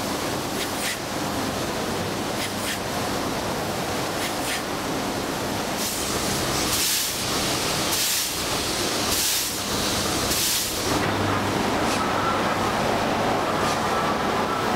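Sugar cane mill machinery running with a steady mechanical din, steam hissing in about five regular bursts roughly a second apart in the middle. A few sharp clicks early on, and a steady whine comes in near the end.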